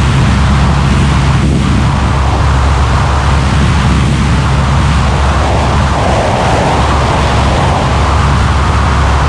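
Yamaha NMax scooter with a single-cylinder engine bored and stroked to 175cc, running flat out at about 140 km/h on its stock exhaust. Its steady drone sits under heavy wind rush on the microphone.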